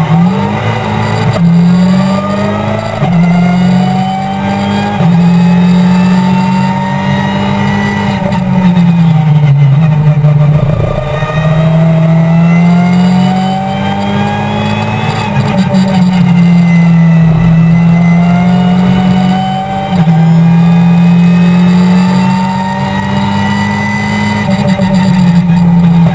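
Race car engine heard from inside the cockpit, pulling away from the starting grid and revving hard through the gears. The pitch climbs and then drops sharply at each upshift, dips lower about ten seconds in as the car slows for a corner, and rises again.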